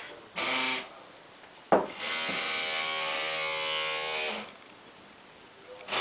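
Tiny electric motor of a 1/144 scale model boat whining in short runs: a brief burst under a second in, a sharp click, then a steady high whine for about two and a half seconds that cuts off. Only one of the boat's two motors is driving its propeller.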